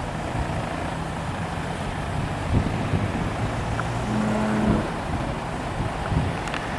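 Truck engine running steadily to drive a truck-mounted hydraulic crane while it hoists a load, with a short steady higher hum about four seconds in and a couple of dull knocks.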